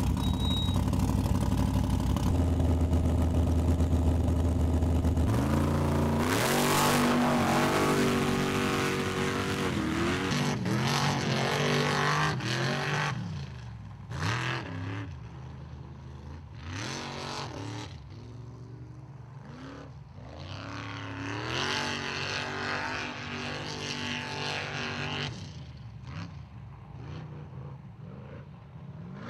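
Formula offroad buggy's engine held at high revs, then launching about five seconds in and revving up and down again and again as the car drives hard across the mud. It grows fainter as the car gets farther away.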